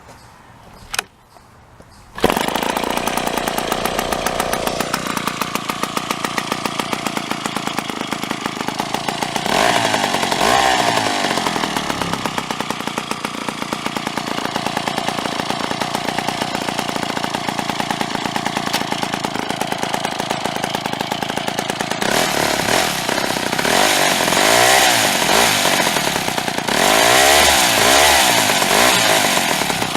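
Jo-Bu 93 chainsaw's 93 cc single-cylinder two-stroke engine catching about two seconds in, after a single knock, and running on. It is revved up and down briefly around ten seconds in and repeatedly near the end.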